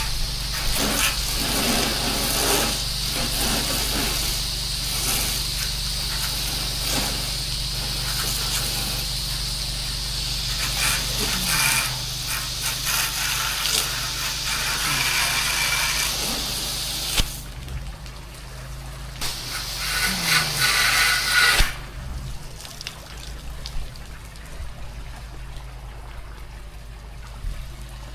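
Pressure washer spraying water in a steady hiss over the low, steady hum of its running motor and pump. The spray cuts off about two-thirds of the way in, starts again briefly, then stops, leaving the motor running.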